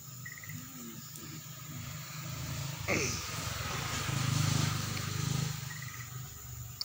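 A vehicle going past: its engine and road noise grow louder to a peak a little past the middle, then fade.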